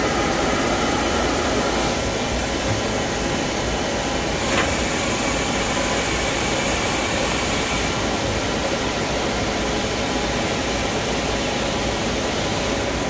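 Citizen K16 CNC Swiss-type lathe running a part program, coolant spraying over the cutting zone: a steady wash of machine and coolant noise. The tone shifts about 2 and 8 seconds in, with one sharp click a little past 4 seconds.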